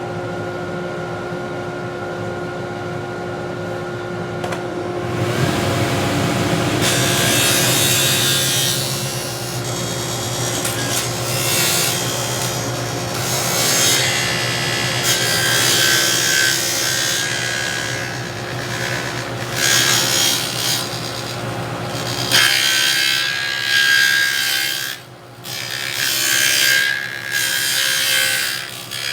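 Table saw running and its blade cutting a stopped dado groove into cedar: a steady motor hum, then from about five seconds in the rough noise of the blade cutting the wood, rising and falling in several surges. Near the end the low hum drops away and the cutting comes in shorter bursts.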